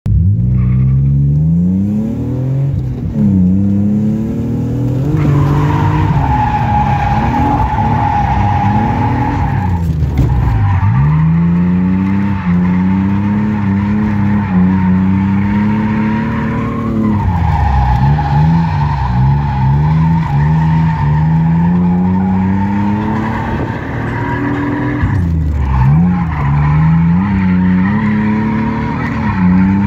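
A drift car's engine revving hard while its rear tyres squeal through long slides, heard from inside the cabin. The revs climb and hold for several seconds at a time, then drop back briefly about three times before climbing again.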